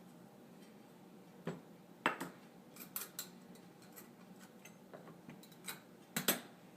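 Measuring cups and spoons clinking and knocking against a mixing bowl and each other in about a dozen scattered light strikes, with the sharpest knocks about two seconds in and near the end.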